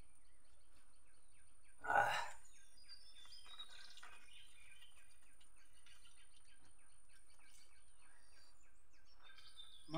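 Quiet outdoor background with faint bird chirps, broken about two seconds in by one short, loud burst of noise, the loudest sound here.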